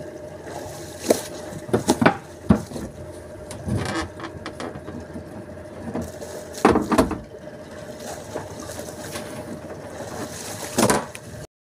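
Knocks and splashes around a small wooden fishing boat at its mooring, over a steady faint engine hum. The sound cuts off abruptly near the end.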